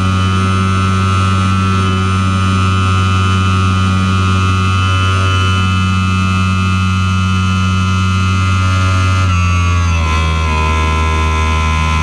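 Air rushing past the canopy of a Swift S1 aerobatic glider in flight: a steady low rush with a steady high tone over it that shifts lower in pitch about ten seconds in.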